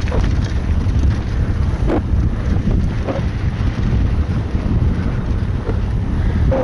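Wind buffeting a bike-mounted camera's microphone as a mountain bike rolls fast down a dirt trail, a heavy steady rumble over the tyre noise, with a few light knocks and rattles from the bike on the rough ground.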